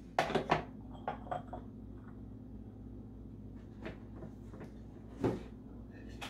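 Light knocks and clacks of small bowls and a lidded jar being set down and shifted on a wooden tray: a quick cluster in the first second and a half, one with a short ring, then single knocks near four and five seconds.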